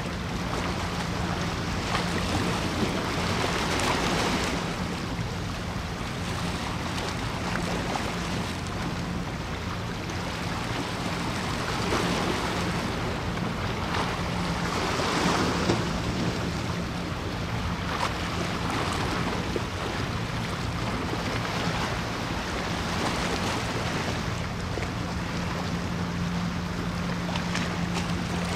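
Sea water washing and lapping in slow swells, with wind on the microphone and a steady low drone underneath.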